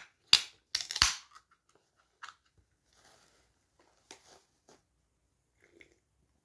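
Ring-pull tab of an aluminium drink can being opened: several sharp cracks in the first second or so, followed by a few faint sips.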